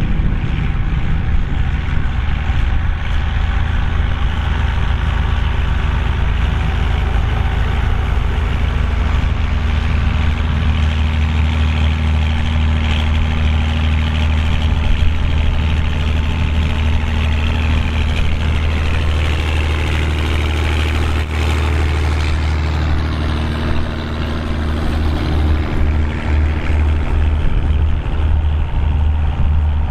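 Volvo BM tractor's diesel engine running steadily with a deep, even drone, with small wavers in the middle part.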